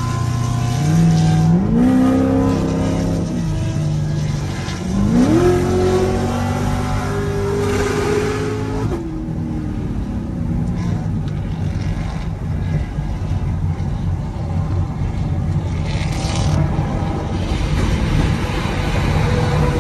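C7 Corvette's V8 heard from inside the cabin, accelerating twice with the engine note climbing in pitch. About halfway through it eases off into a steady drone of engine, road and wind noise at highway speed.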